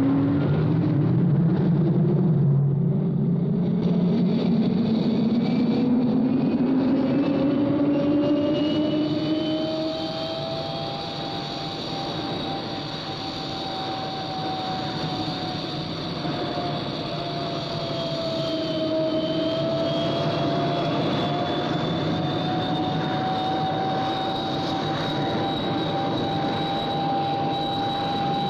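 Jet aircraft noise: a steady rush with whining tones that climb slowly in pitch, dip briefly about two-thirds of the way through, then rise and hold.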